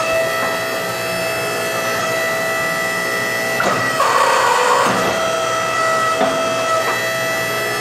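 Hydraulic forging press running with a steady pump whine as its ram presses a tool into a red-hot steel hammer head. A couple of knocks and a brief louder surge come a little after halfway.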